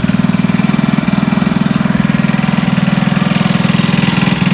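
Small engine of a water pump running steadily at a fast, even beat, draining a rice paddy.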